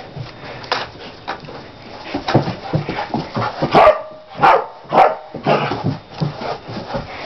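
Dog spinning after its tail, its paws scuffling and thumping on carpet, with three short barks about four to five seconds in.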